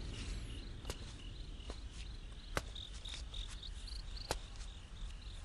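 Crickets chirping in short, rapidly repeated chirps, with a few faint sharp clicks scattered through.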